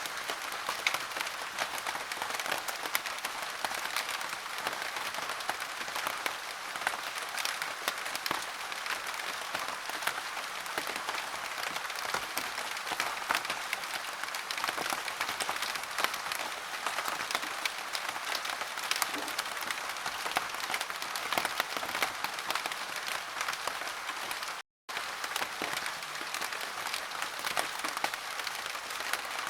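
Steady heavy rain, a dense patter of drops, cutting out completely for a split second about three-quarters of the way through.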